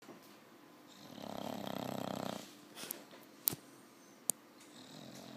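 English bulldog snoring in its sleep: one long, fluttering snore starting about a second in and lasting about a second and a half. Two sharp clicks follow, then a fainter breath near the end.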